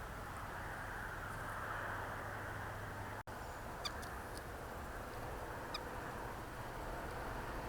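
Two short bird calls, about two seconds apart, over a steady background hiss.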